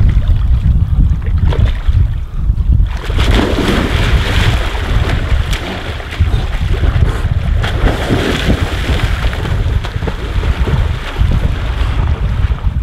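Wind buffeting the microphone, with a man splashing in shallow water: he wades in, then from about three seconds in plunges and swims with heavy splashes.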